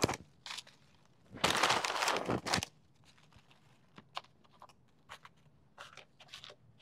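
Tortilla chip bag crinkling as a hand reaches into it. The bag rustles loudly for about a second, starting about a second and a half in. Afterwards come a few faint, light clicks as chips are set down one by one.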